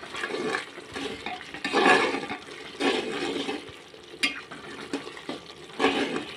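Metal ladle stirring a wet curd-and-spice masala in a pressure cooker: uneven, wet sloshing and scraping strokes, loudest about two seconds in and near the end, with a light tap about four seconds in.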